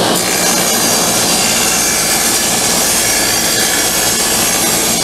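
Table saw running steadily while ripping a treated pine 2x6 lengthwise against the fence.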